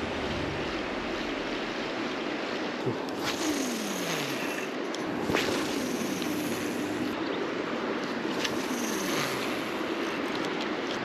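Mountain river rushing steadily, a constant even hiss of flowing water, with a few faint clicks over it.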